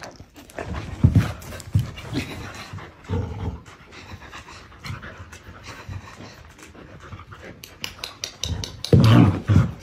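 Samoyed panting while mouthing a rope toy, with a quick run of sharp clicks in the second half and a louder, short low sound near the end.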